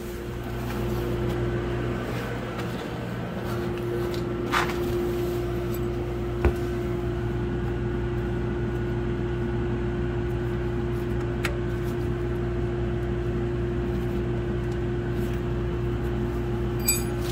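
A steady mechanical hum with a constant tone, which drops out for about a second a couple of seconds in, and a few faint clicks over it.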